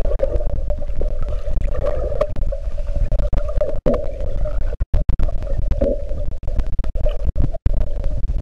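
Muffled underwater water noise picked up by a camera held below the surface while swimming: a constant low rumble with a steady droning note. The sound cuts out for an instant a few times.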